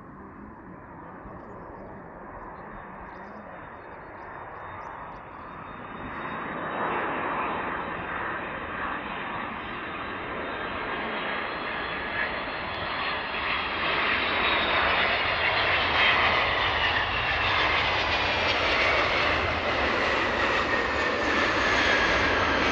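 Boeing 767-300's twin jet engines on final approach and landing, growing steadily louder as the airliner comes in. Over the last several seconds a high engine whine slides down in pitch as it passes.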